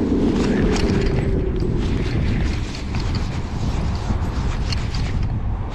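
Wind buffeting the microphone over choppy water, with a low hum fading out in the first second. Through it comes the light ticking of a baitcasting reel being cranked, about three ticks a second.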